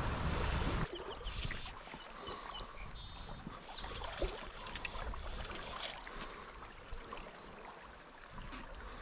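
Creek water trickling and lapping, with small birds chirping and a short high trill about three seconds in. A low rumble stops abruptly about a second in.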